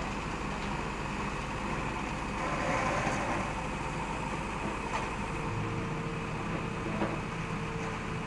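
JCB backhoe loader's diesel engine running steadily as the backhoe digs, growing louder for about a second midway, with a few faint knocks.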